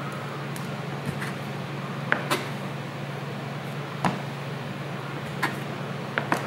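Stainless-steel bench scraper chopping through pizza dough and knocking on the work board: irregular sharp taps, about one a second, over a steady low hum.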